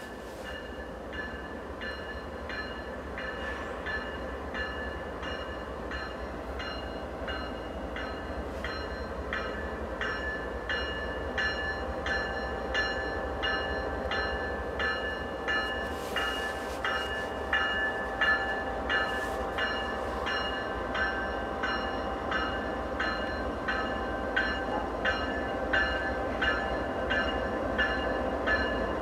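Two GE diesel freight locomotives, led by CP ES44AC 8951 with an AC4400CW behind it, hauling a grain train toward the listener. The engines give a steady drone that grows louder as they approach, over a regular clicking of wheels passing over rail joints.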